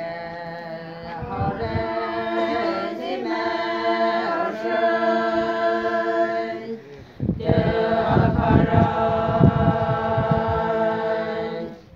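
A group of women singing a traditional song a cappella, in long held notes. Two sung phrases with a short breath pause about seven seconds in.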